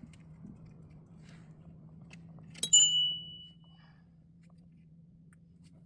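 A single sharp metal clink about two and a half seconds in, ringing briefly with a high tone, over a faint steady low hum.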